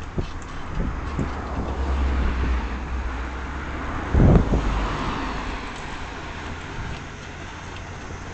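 Road and wind noise from a moving vehicle: a steady low rumble with a few knocks in the first second. About four seconds in, a loud low thump is followed by a brief rushing hiss as an oncoming car passes.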